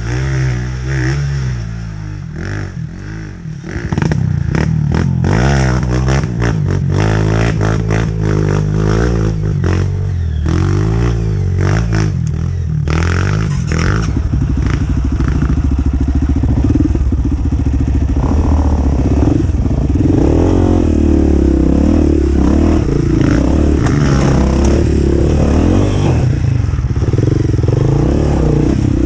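Dirt bike engine revving up and down under load, pitch rising and falling, with a run of sharp rattling knocks from about four to thirteen seconds in.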